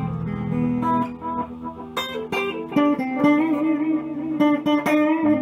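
Electric guitar picking a run of notes and chords through an Elk EM-4 tape echo and a Guyatone amplifier, the notes ringing on in echo repeats.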